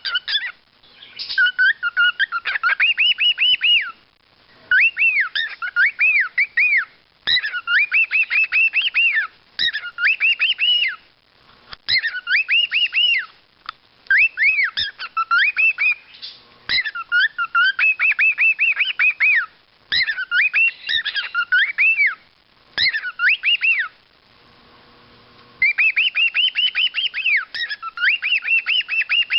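Cockatiels calling: bursts of quick, repeated rising-and-falling whistle notes in phrases of a few seconds, broken by short pauses. Near the end there is a quieter gap with only a low hum.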